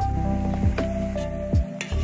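Background music: held synth tones over a deep electronic beat that thumps about once a second.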